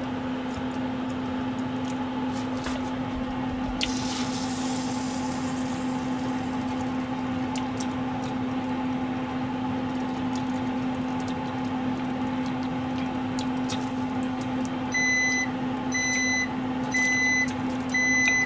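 Panasonic induction cooktop with its built-in grill running, giving a steady electrical hum. From about three-quarters of the way through, the appliance beeps about once a second.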